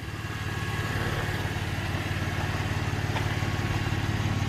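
A 2016 GMC Canyon pickup's engine idling, a steady low pulsing that grows louder over about the first second and then holds even.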